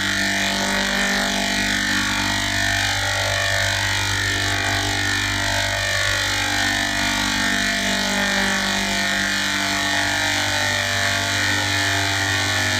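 Digitally processed, heavily distorted sound effect: a dense drone of many layered tones with a warbling texture, held at one loudness without a break.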